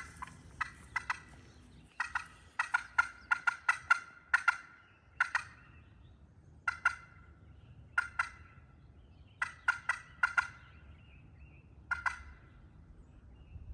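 A hand-held friction turkey pot call worked with a striker, giving short, sharp hen-turkey notes in irregular runs, densest a few seconds in. It is calling to a gobbling tom.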